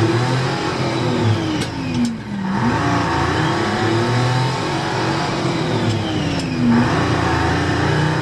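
Car engine revving, its pitch rising and falling several times, with a few sharp clicks.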